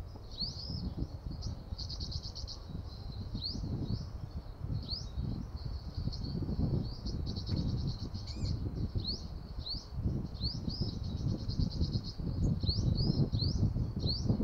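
Olive-backed sunbirds calling: short, sharp rising notes about every second, with fast chattering trills about two and seven seconds in, over a low rumble of wind on the microphone.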